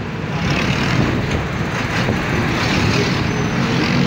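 Roadside traffic noise: motor vehicles running past on the street, the sound swelling about half a second in and staying loud.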